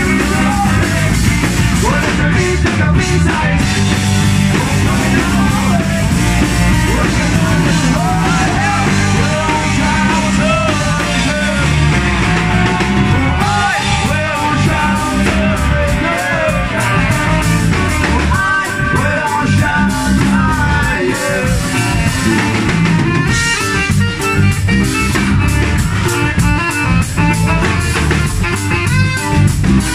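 Ska-punk band playing live and loud: electric guitar, drum kit, trombone and saxophone, with singing. The drumming turns busier near the end.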